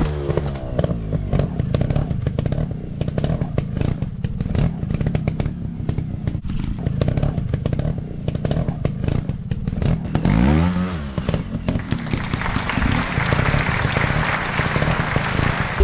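Off-road trail motorcycle engine running and revving, its pitch rising at the start and again about ten seconds in, over constant rough knocks and clatter.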